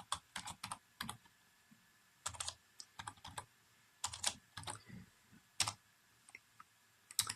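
Computer keyboard being typed on with one hand: short, irregular runs of a few keystrokes with pauses between them.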